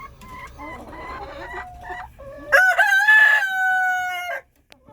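Chickens clucking softly, then about two and a half seconds in a rooster crows once: a loud call of about two seconds that cuts off sharply.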